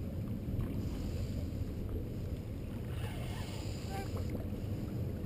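Steady rumble of wind on the microphone with small waves lapping against shoreline rocks.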